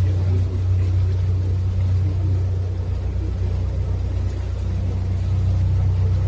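Canal tour boat's engine running with a steady low drone.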